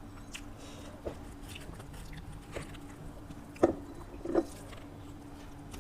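Close-up eating sounds: a mouthful of fried ivy gourd with rice being chewed, with a few short wet mouth clicks about a second in and twice near the end, over a faint steady hum.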